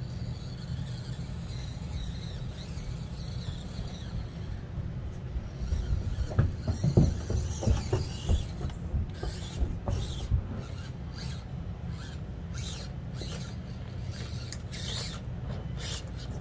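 An RC rock crawler's electric motor and drivetrain whirring at low speed. About six seconds in comes a run of clicks and knocks as its tires and chassis scrabble over the obstacles, followed by short scraping sounds.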